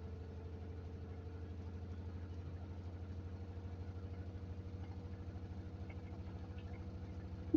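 Samsung washing machine running on a cotton cycle: a steady low motor hum with a fast, even pulsing as the drum turns, and a short knock right at the end.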